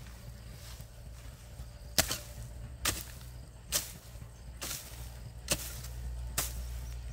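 A tool striking again and again at an even pace, a little more than once a second, starting about two seconds in, over a steady low rumble.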